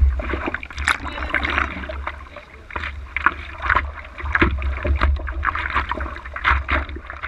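Seawater splashing and sloshing in irregular strokes as a surfer paddles prone on a surfboard, heard close to the water surface, over a steady low rumble.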